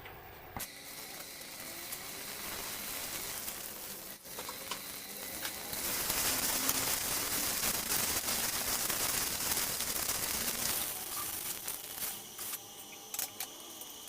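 Food sizzling in a hot pan. The hiss swells about six seconds in and eases off around eleven seconds, with a few sharp clicks near the end.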